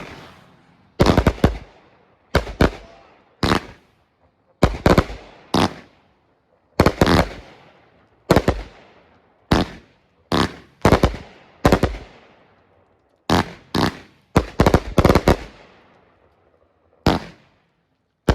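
Consumer fireworks going off: a string of loud bangs about once a second, some coming in quick twos and threes, each fading away in a short echo.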